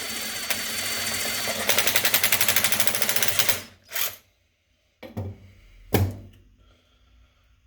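Electric drill boring out the hole in a cable lug, a steady chattering whir that stops abruptly about three and a half seconds in. Three separate knocks follow, about a second apart.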